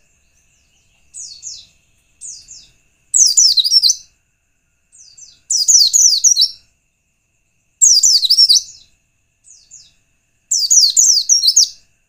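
White-eye (pleci) song played as a lure call: four loud phrases of quick, high, downward-slurred chirps about every two and a half seconds, each led in by a softer short phrase.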